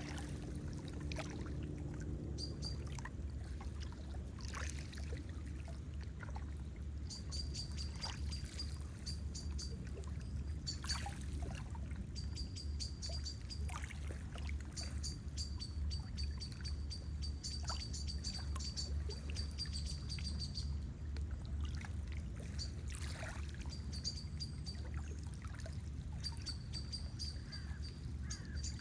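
Steady lapping and trickling of water, with a small bird's high, rapid ticking trill. The trill comes in long runs from about a quarter of the way in, breaks off briefly, then returns near the end.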